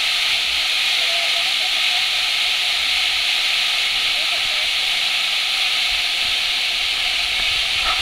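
Waterfall's falling water making a steady, even rushing hiss that does not let up.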